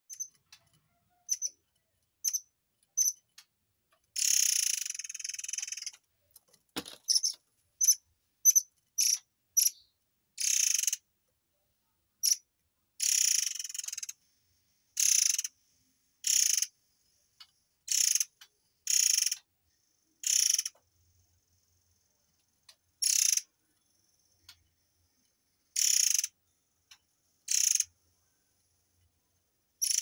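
Caged murai air (air mancur) songbird singing sharp, high-pitched 'tembakan' phrases: short bursts of a fraction of a second to a second each, one to two seconds apart, with a longer two-second phrase a few seconds in.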